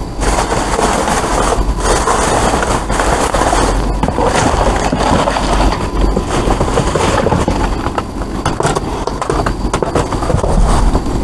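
Plastic trash bags and cardboard boxes rustling, crinkling and scraping as they are pushed and shifted by hand, with many small sharp crackles, over a steady low rumble.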